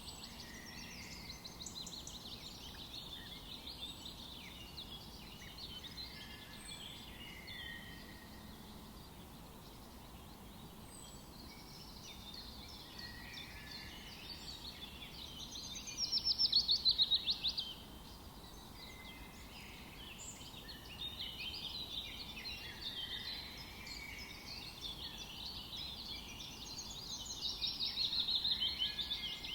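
Several birds chirping and calling together in a morning chorus over a faint steady background hiss. A louder, rapid trilling song stands out twice, about halfway through and again near the end.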